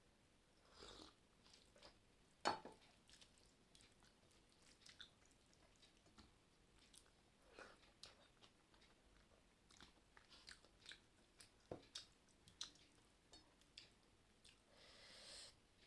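A person chewing a mouthful of rice and curry: quiet, wet mouth clicks and smacks, with one sharper click about two and a half seconds in.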